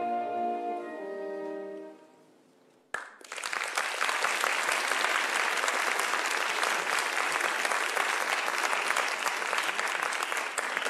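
An opera orchestra's closing chords fade out. After a brief silence a theatre audience starts applauding about three seconds in, and the applause goes on steadily.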